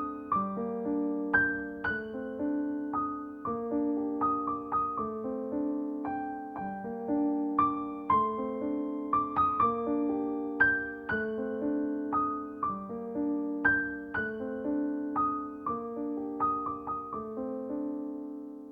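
Slow, gentle piano music in background: single notes struck over sustained chords, each note fading away.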